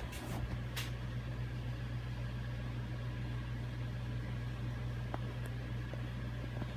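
Vintage 52-inch Dockside Sales top-mount ceiling fan coasting down after being switched off from high: a steady low hum, with a few light clicks in the first second.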